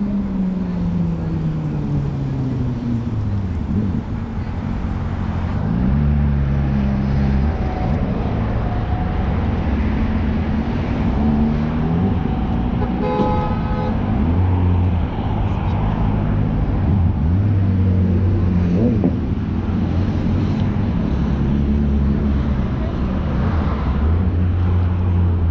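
Street traffic: motor vehicle engines running and passing, one falling in pitch near the start as it slows or goes by. A car horn sounds briefly about halfway through.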